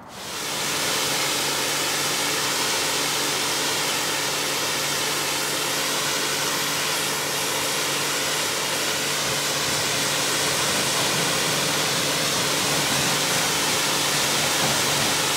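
Pressure washer spraying a steady high-pressure jet of water onto a car's paintwork, rinsing off the soap, with the machine's motor humming steadily under the hiss of the spray. It comes on suddenly.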